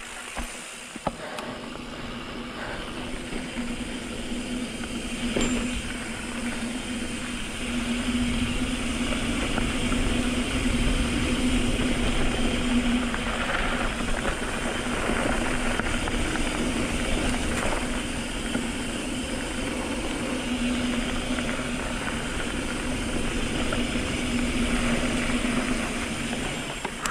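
Mountain bike riding down a dirt trail: wind buffeting the microphone and tyre and trail noise, with a steady buzzing tone that swells and fades.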